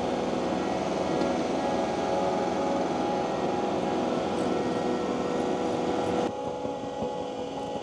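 Takeuchi TL12 V2 track loader running with its high-flow hydraulics driving a Conetex grinding attachment: a steady machine drone with a held whine. The sound drops suddenly in level about six seconds in.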